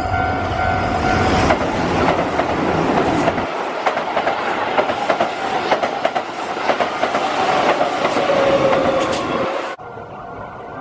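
Keihan electric train passing close by, its wheels clattering over the rail joints with a whine that slowly drops in pitch. The sound cuts off suddenly near the end.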